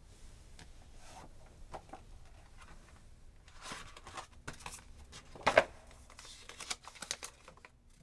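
Paper rustling and crinkling as a folded handwritten note is handled and unfolded, in short scratchy strokes with one louder crackle about five and a half seconds in.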